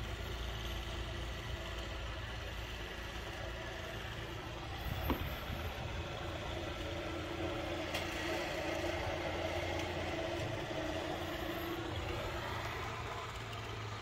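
An engine running steadily, a low rumble with a steady hum that grows a little louder in the second half; a single sharp click about five seconds in.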